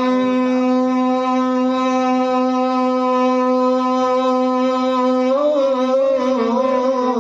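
A male naat reciter holding one long sung note, steady for about five seconds, then wavering and bending in pitch near the end.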